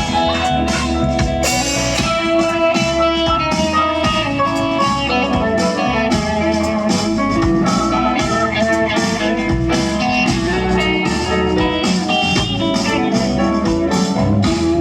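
A live band playing an instrumental passage at a sound check: guitar lines over bass and drums, with no singing.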